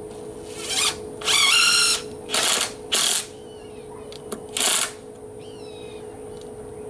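Cordless drill driving screws in five short trigger bursts, the longest about a second in. The motor whirs up in pitch during the bursts and winds down after some of them.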